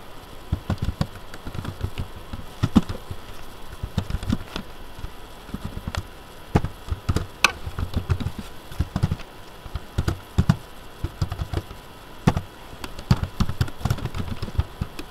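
Computer keyboard typing: irregular key clicks in quick runs with short pauses between them.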